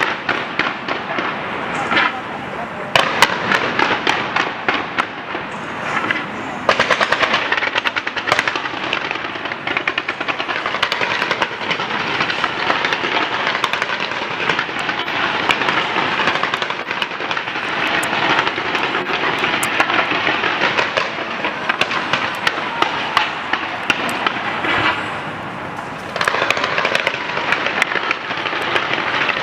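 Fireworks display going off in a dense, continuous barrage of rapid bangs and crackles, with some sharper individual reports standing out in the first few seconds.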